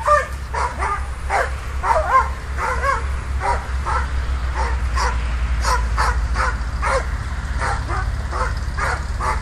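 Hunting dog barking again and again, high-pitched barks at about two a second, baying at a wild boar it is holding at bay. A steady low rumble runs underneath.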